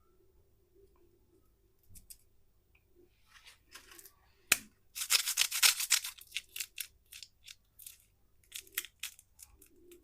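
Plastic candy wrapper being torn open and crinkled. It is quiet at first, then there is a sharp snap about four and a half seconds in, a dense burst of crackling, and a string of separate crackles.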